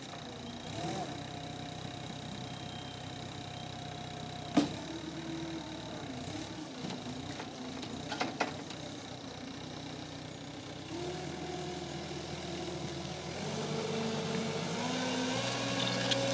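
Cat skid steer loader's diesel engine running, its pitch stepping up twice in the second half as it revs under load. A sharp knock comes about four and a half seconds in, and a couple of smaller clanks around eight seconds.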